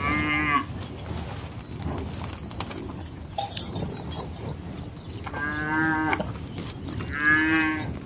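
Cattle mooing: three short calls, one near the start and two close together in the second half. A brief high clink is heard about halfway through.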